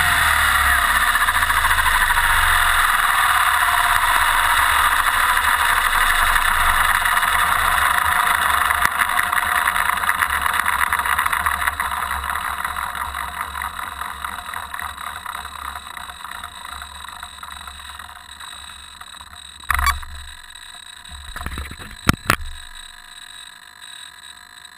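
Align T-Rex 600 EFL Pro electric RC helicopter's motor and rotor drive running down after the throttle is cut, heard from a camera mounted on the frame. A steady whir fades away over the second half, with a few sharp knocks near the end.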